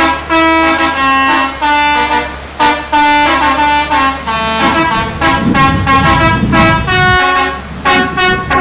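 Bus 'telolet' horn, a multi-tone musical air horn, playing a tune of short held notes one after another. A low rumble joins under it for a few seconds from about halfway through.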